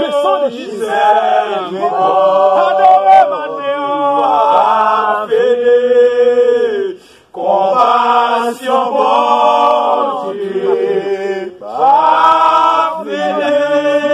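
A group of voices chanting a worship song together in long held notes, with a brief break about seven seconds in.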